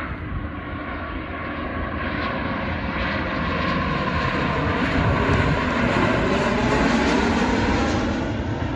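Jet airliner passing close by. Its engine noise swells to a loud peak about two-thirds of the way in, with tones that slide in pitch as it goes by.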